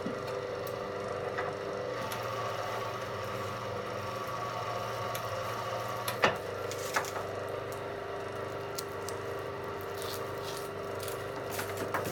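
MS-25 electric cable-stripping machine running with a steady motor hum while a copper cable is fed through and its blade slits the insulation. Sharp cracks come about six and seven seconds in, with a cluster of clicks near the end.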